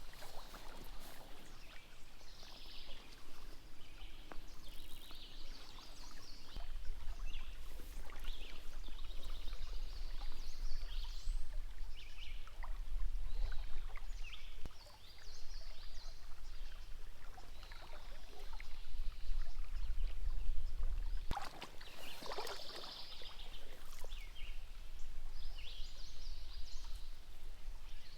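Stream water running and splashing, with a low rumble under it through the middle and a few sharp knocks, the loudest about two thirds of the way in.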